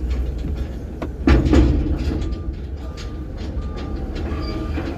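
Vehicle engine rumbling steadily while backing up toward the scrap bins, with a short beep repeating about every 0.7 s from about two seconds in, like a reverse or parking-sensor beeper. A loud clunk comes about a second in.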